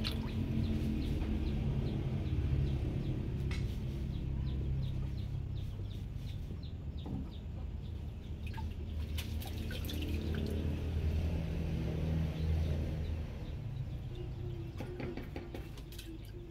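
Hand net sloshing and dipping through the water of a shrimp holding tank, with small birds chirping in the background. A low steady hum runs underneath, louder in the first half.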